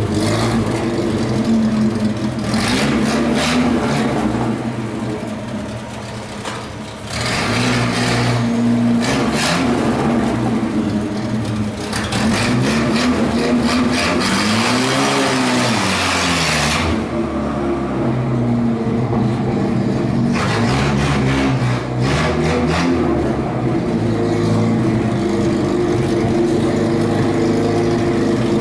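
Chevrolet Opala's engine running as the car manoeuvres, with one rev up and back down about halfway through.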